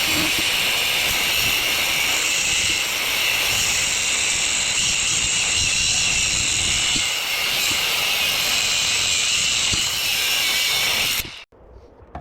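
Power tool cutting through the steel shaft of a belt-driven radiator fan assembly, a steady, loud hiss that stops abruptly about eleven seconds in as the cut is finished.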